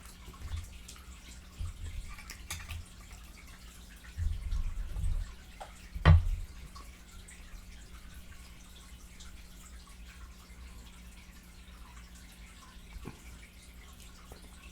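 Close-miked chewing and wet mouth smacking while eating fried chicken, in short irregular bouts with pauses between; the loudest is a sharp smack about six seconds in.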